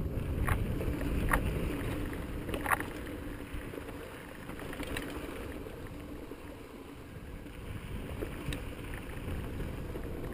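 Mountain bike rolling over sandstone slickrock: a steady low rumble of tyres and wind on the microphone, with a few sharp clicks and rattles from the bike.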